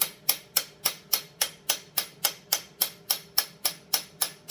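Light, evenly spaced hammer taps on a steel bearing-driving punch, about three and a half a second, each with a short metallic ring. A main bearing is being driven onto a chainsaw crankshaft.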